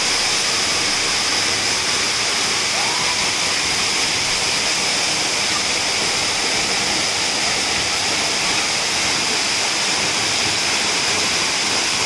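Waterfall pouring down a rock cliff into a pool: a steady, loud rush of falling water that cuts off suddenly at the end.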